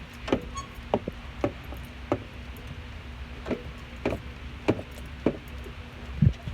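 Front passenger-side suspension of a 2019 Toyota Tacoma squeaking in short, sharp chirps, about nine of them spaced roughly half a second to a second apart, as that corner of the truck is pushed down and rocks. The squeak persists despite lubrication and removal of the skid plate; the owner wonders whether it comes from the bushings, the shock or the strut.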